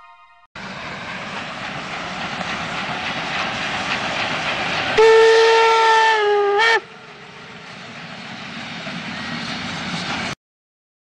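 Steam-hauled passenger train running, heard from a coach window: a steady rumble of wheels on rails with wind rush. About halfway through, the steam locomotive at the head of the train blows its whistle once, a loud single tone of nearly two seconds that sags slightly in pitch and stops abruptly.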